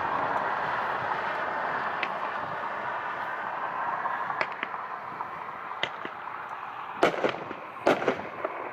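A 36-shot, 500-gram consumer fireworks cake firing, with sharp reports of shots and breaks. They come sparsely at first over a steady hiss that fades, then faster and louder in the last two seconds.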